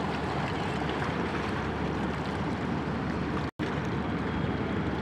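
Steady rush of river water and passing inland barges' wash, with a low rumble underneath. The sound drops out completely for a split second about three and a half seconds in.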